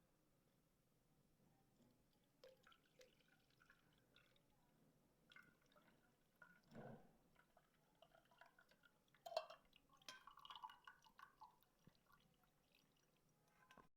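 Very faint, scattered ticks and small pops of water heating in a pot as it comes toward the boil, with a cluster of louder clicks about two-thirds of the way through.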